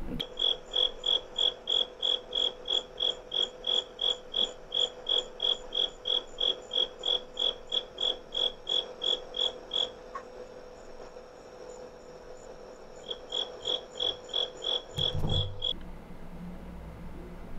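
A cricket chirping loudly and very evenly, about three chirps a second, recorded by an outdoor security camera and heard through a phone's speaker. The chirping pauses for a few seconds, starts again, and there is a brief low rumble just before the recording cuts off.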